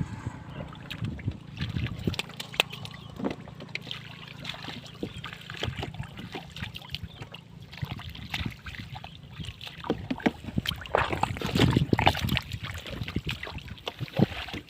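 Hands splashing and sloshing in shallow, muddy rice-field water while groping for fish: irregular splashes and water noise, busiest a little before the end.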